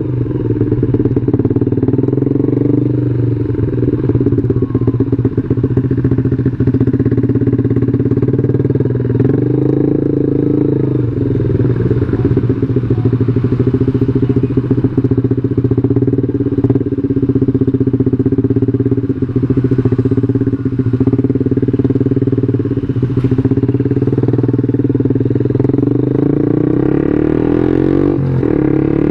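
Yamaha New Jupiter MX 135's single-cylinder four-stroke engine running steadily as the motorcycle is ridden, its pitch rising near the end as it accelerates.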